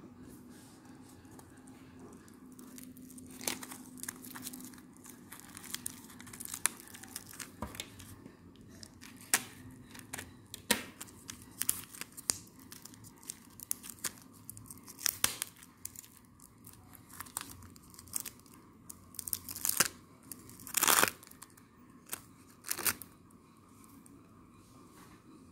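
Clear plastic blister pack of a microSD card and adapter being torn and pulled open: irregular crinkling with many sharp plastic crackles and snaps, the loudest cluster about 21 seconds in.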